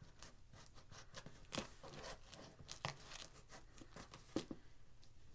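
Faint scattered rustling, crinkling and small clicks of packaging being handled as a shipping box is opened and unpacked.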